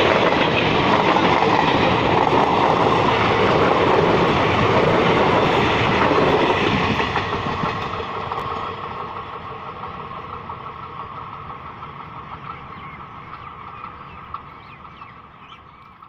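Indian Railways passenger coaches rolling past at speed, wheels clattering over the rail joints. From about six seconds in the sound fades steadily as the end of the train draws away, leaving a steady high buzz from the rails.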